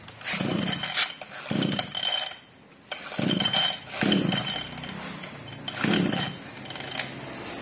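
Mitsubishi TL261 26cc two-stroke backpack brush cutter being pull-started: several separate tugs on the recoil starter crank the engine, and it does not settle into steady running.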